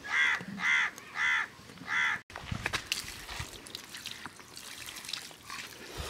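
A bird calls four times in quick succession. Then, after a cut about two seconds in, water trickles and splashes as it is poured from a plastic can over a fire-singed whole country chicken while hands rub it clean on a stone slab.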